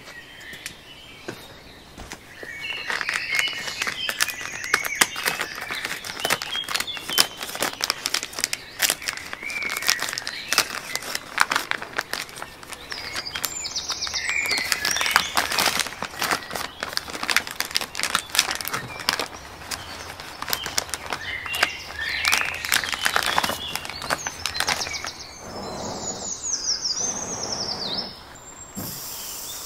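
Birds chirping and singing, mixed with repeated crinkling and rustling of a plastic meat package as it is opened and handled.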